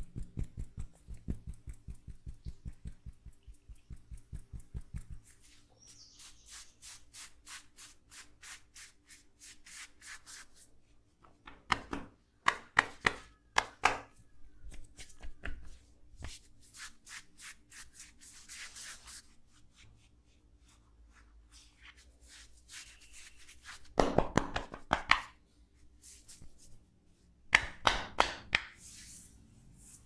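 Massage hands tapping and patting rapidly on a thigh and knee through cloth leggings, in runs of several strikes a second, with a few louder, sharper flurries of chopping strokes and softer rubbing between them.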